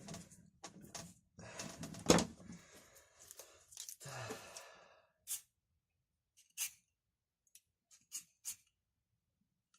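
Hands working with metal and plastic parts: rustling and scraping, with one loud knock about two seconds in, then a few separate short clicks.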